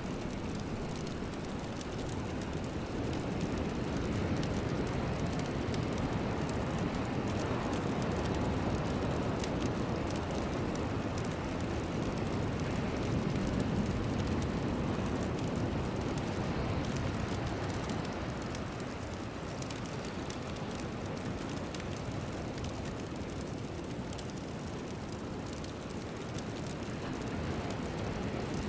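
A steady, even rushing noise with no tune, beat or steady tone, a deep rain-like wash that swells gently and then eases off over the span.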